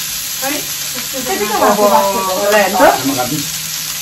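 Pork belly, mushrooms and prawns sizzling steadily on a tabletop barbecue griddle as they are turned with metal tongs. Voices chatter over it about a second and a half in.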